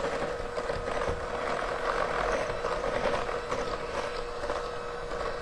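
Electric hand mixer running steadily with a constant motor whine, its beaters creaming butter and sugar in a glass bowl.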